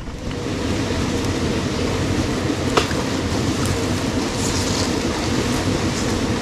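Steady rumbling noise of a small fishing boat under way, with a few faint clicks.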